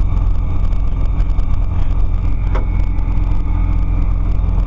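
Bristell ultralight's propeller engine running at low taxi power, heard from inside the cockpit as a steady low hum.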